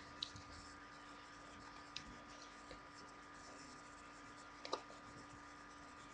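Near silence: room tone with a faint steady hum and three soft clicks, one just after the start, one about two seconds in and one near five seconds in.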